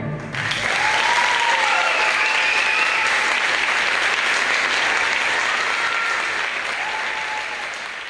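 Audience applauding: the clapping swells in within the first half second, holds steady, and dies away near the end.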